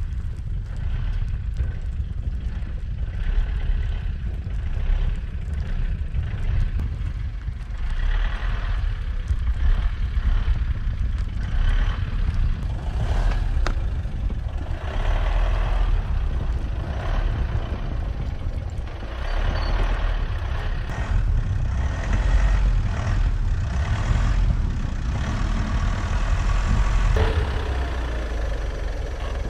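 Mitsubishi L200 pickup truck driving, its engine and road noise making a steady low rumble, with road noise that rises and falls.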